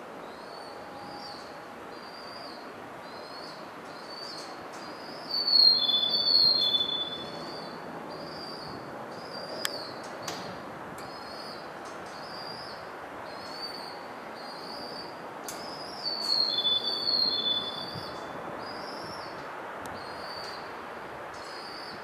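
Birdsong of short high chirps repeating about once a second. The same louder warbling phrase comes twice, about ten seconds apart, over steady background noise.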